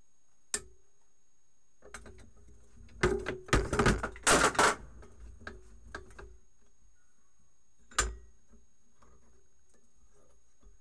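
Metal-on-metal knocks and clanks as antique limb clippers are worked against a steel bench vise: a sharp click about half a second in, a quick run of loud knocks from about three to five seconds, a few lighter ticks, and one more loud knock at about eight seconds.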